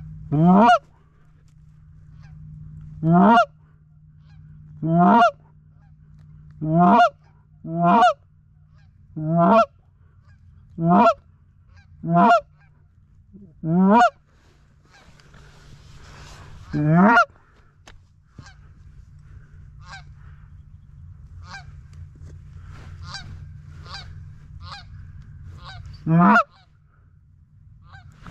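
Canada goose honks, loud and close like a hunter's hand-blown goose call. Each note breaks sharply upward in pitch, about one every one and a half to two seconds for the first half, then softer, shorter calls and one more loud honk near the end.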